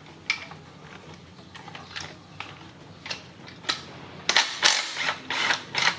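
Hand ratchet with a 13 mm socket clicking as a bolt on the engine lifting hook is worked: scattered single clicks, then a quicker run of louder clicks near the end.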